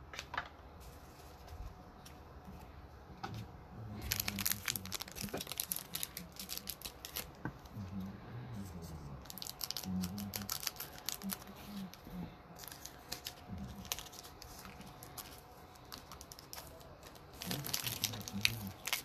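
Trading card pack wrappers being torn open and crinkled in three bursts of crackling: about four seconds in, around thirteen seconds, and again near the end.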